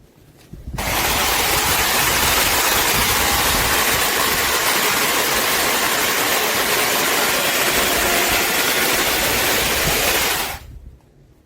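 Chainsaw running steadily, starting about a second in and cutting off abruptly near the end.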